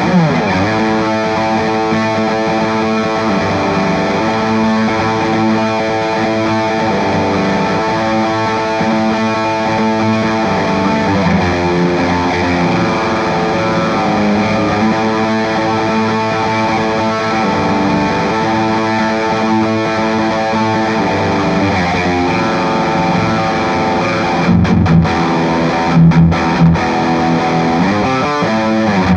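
Gibson Les Paul Special Double Cut electric guitar, with its two P-90 soapbar pickups, played through an overdriven Soldano Astro 20 amp. It rings out sustained chords and melodic lines, with a few louder, short stabbed notes near the end.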